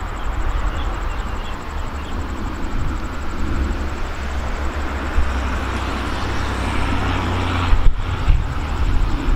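Diesel train engine running with a low steady hum as a train draws near, mixed with road traffic noise; the sound grows louder toward the end and drops out for an instant about eight seconds in.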